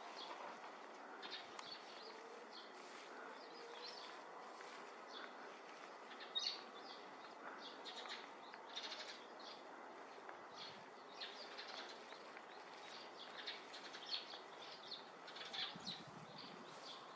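Faint open-air background with small birds chirping now and then: short, high chirps scattered throughout, the loudest about six seconds in.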